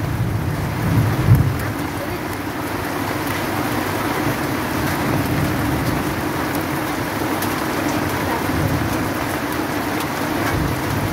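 Heavy rain mixed with hail falling steadily on trees and ground, with a low rumble about a second in.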